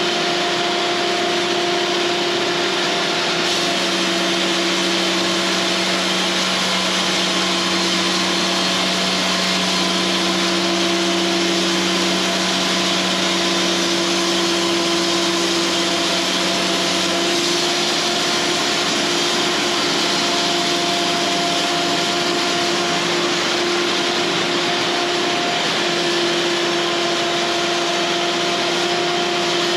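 Cooks AC36 band sawmill running steadily as it saws a pine cant. A lower hum joins about four seconds in and drops out around seventeen seconds in.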